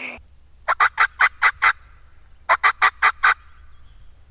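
Wild turkey calling: two quick runs of sharp, evenly spaced yelps, six then five, at about five notes a second.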